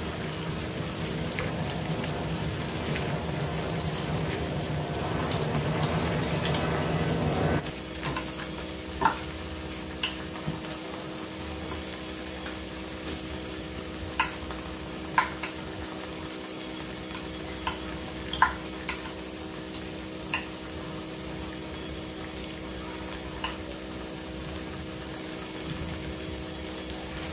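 Plantain slices deep-frying in a pan of hot oil: a steady sizzle, louder and denser for the first seven seconds or so, then dropping suddenly to a quieter sizzle with scattered sharp clicks.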